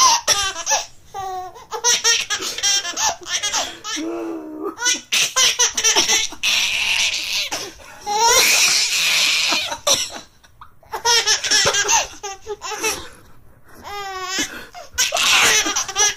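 A baby laughing in repeated bouts of quick, rhythmic laughs, with short pauses for breath between them.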